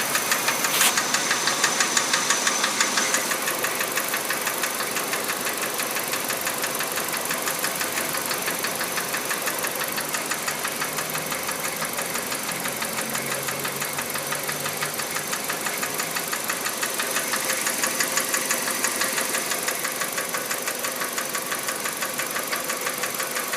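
Kia Rio's 1.4-litre G4EE four-cylinder engine idling with a fast, even ticking knock. The owner first takes the ticking for the fuel injectors and then for a hydraulic lash adjuster, without being sure.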